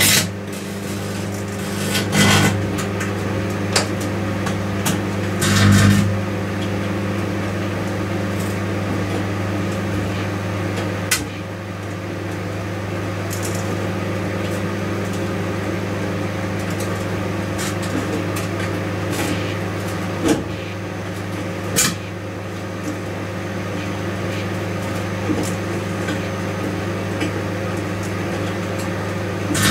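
Microwave oven running with a steady hum, with irregular crackling snaps every few seconds, the longest about 2 and 6 seconds in, from aluminium foil tape arcing inside it.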